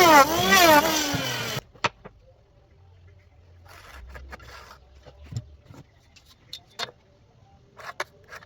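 A power tool's motor whines loudly, its pitch rising and falling as it works, then stops abruptly about a second and a half in. After that come scattered light knocks and clicks, like wooden pieces being handled.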